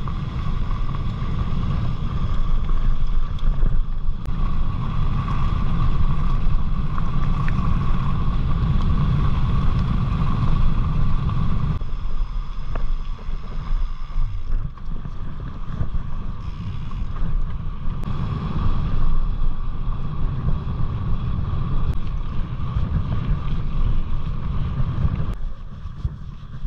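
Wind buffeting the microphone over the rumble and crunch of mountain-bike tyres rolling on a gravel track. About twelve seconds in, the gritty high crunch drops away as the bike rolls onto smooth tarmac, leaving wind rumble and a softer tyre hum.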